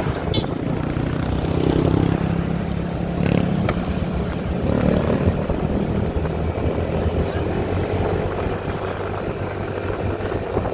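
Motorcycle engines running steadily, with a low engine note throughout.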